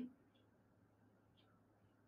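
Near silence: room tone, with a couple of faint small ticks.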